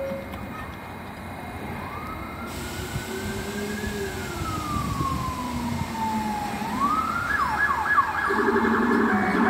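Emergency vehicle siren wailing: a slow rise and fall in pitch over several seconds, then a quick climb into a rapid yelping warble near the end, as the overall sound grows louder.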